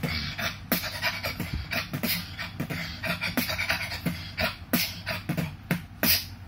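Human beatboxing: a fast rhythm of sharp mouth-made hits over a steady low bass.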